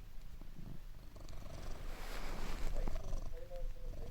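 Domestic cat purring steadily. A brief rustle comes about two seconds in, and a soft wavering voice joins near the end.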